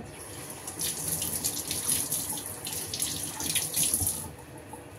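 Kitchen tap running into a stainless-steel sink, the water splashing on the steel. It comes on about a second in and is turned off near the end.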